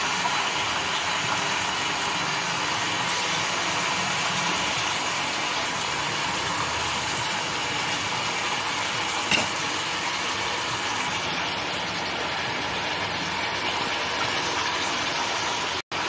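Slices of pasinde meat sizzling steadily in oil in an aluminium pot, with a single click about nine seconds in and the sound cutting out for a moment near the end.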